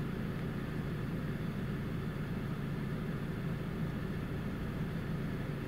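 Audi A6 diesel engine idling, a steady low hum heard from inside the car's cabin.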